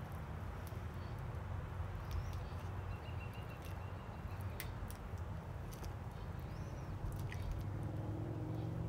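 Gloved hand smoothing wet epoxy over a gourd: sticky little clicks and squelchy squeaks as the glove sticks and pulls away from the coating, over a steady low hum from the rotisserie motor turning the gourd.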